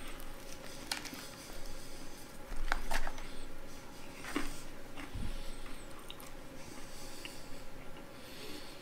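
Close-miked eating sounds: a man chewing fried chicken and tearing a piece apart by hand, with scattered crackles and clicks from the breading, loudest about three seconds in.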